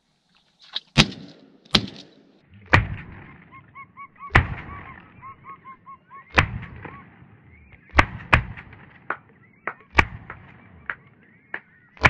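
Shotgun firing repeatedly at a flushed flock, about nine loud blasts over some ten seconds with fainter shots between them. Whistling ducks calling between the shots with a run of short, repeated whistles.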